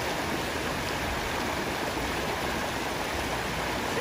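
Shallow rocky stream running over and between boulders: a steady, even rush of water.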